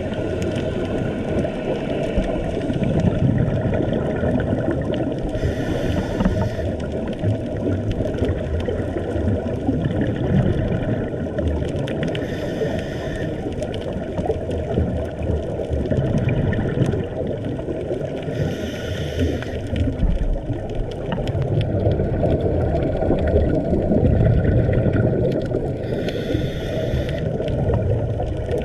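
Scuba diver breathing through a regulator, heard underwater: a constant muffled water rush, with a short hiss of exhaled bubbles about every six to seven seconds.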